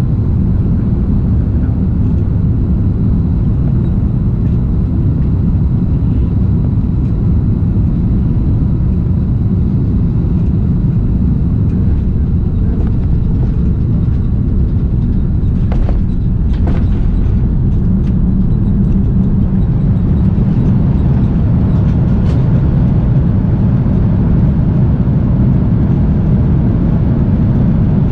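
Airbus A330-200 cabin noise at the window during landing: a steady low rumble of engines and airflow, with a few short knocks about halfway through as the wheels touch down, then the rumble of the rollout on the runway.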